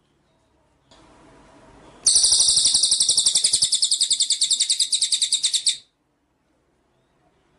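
Cililin bird singing a fast, high-pitched trill of rapidly repeated notes, about ten a second, lasting nearly four seconds and then stopping abruptly, over a light hiss of recording noise.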